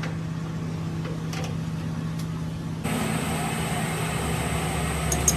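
Lathe running with a steady low hum; about three seconds in, the sound changes abruptly to a louder, noisier running with a high, steady whine.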